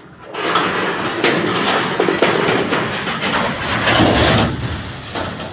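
Loud rumbling and clattering from things shaken during a strong earthquake, full of sharp knocks, swelling about half a second in and heaviest around four seconds in before easing off near the end.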